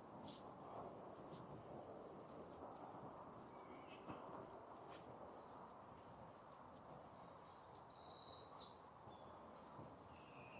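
Faint songbirds singing in woodland: quick high trills, a short phrase about two seconds in and a busier run of phrases in the second half. Under them is a low, steady hum of distant motorway traffic.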